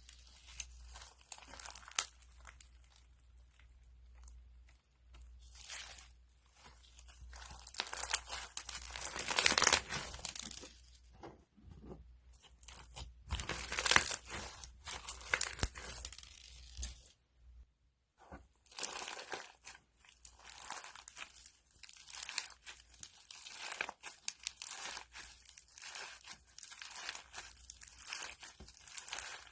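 Crunchy slime being squeezed and pressed by hand, giving off dense, irregular crackling and crunching, loudest in surges about a third and half of the way through, with a short pause a little past the middle.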